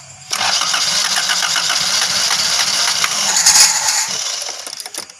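Honda Grand Civic's carbureted engine cranked on the starter for about four seconds without catching, then fading out as the cranking stops. It is a start attempt on an engine that starts hard, after a homemade clamp has been fitted in place of the carburetor's broken mounting ear.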